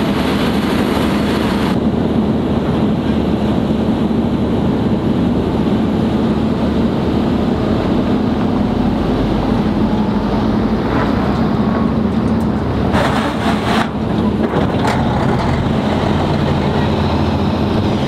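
Diesel truck engines running steadily under load as a pickup in four-wheel-drive low slowly tows a semi-truck to bump-start it, with a few sharp knocks about two-thirds of the way through.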